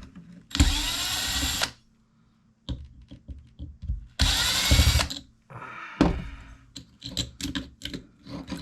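Handheld power drill-driver running in two short bursts of about a second each, its motor speeding up and slowing, while the clock's parts are taken apart. Light clicks and rattles of small parts follow in the second half.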